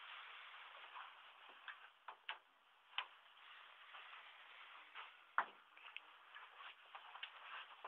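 Faint, irregular clicks and taps over a steady low hiss: handling and footstep noise from someone walking with a handheld camera, with one louder, deeper knock about five and a half seconds in.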